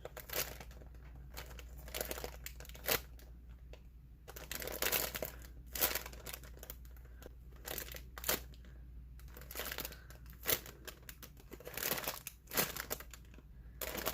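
Plastic packaging crinkling in irregular bursts as a homemade squishy inside it is squeezed and handled.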